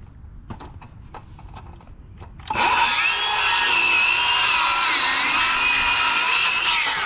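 A handheld electric power tool starts about two and a half seconds in and runs with a steady high whine while cutting wood, trimming off an overhang, then spins down with falling pitch at the end. Before it, a few light taps.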